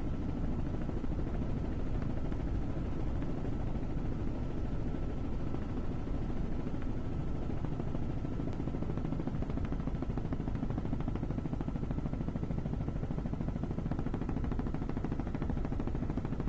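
Helicopter rotor and engine noise heard from on board: a steady, rapid low chop with a thin steady whine above it.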